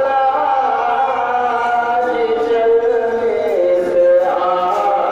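A man singing a naat, an Islamic devotional poem, into a handheld microphone, in long held notes that slide from pitch to pitch.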